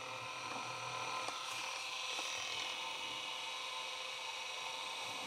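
Sony WM-10 Walkman cassette player running in play: a steady mechanical whine with several held tones.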